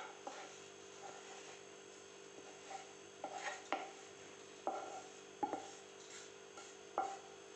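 Spatula scraping and knocking against a nonstick kadhai and a steel bowl as a roasted ground sesame mixture is pushed out of the pan: about half a dozen short knocks in the second half, over a faint steady hum.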